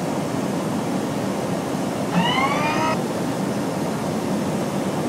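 Floatplane engine and propeller running steadily, a constant drone heard from inside the cabin in flight. About two seconds in, a short rising tone sounds for under a second.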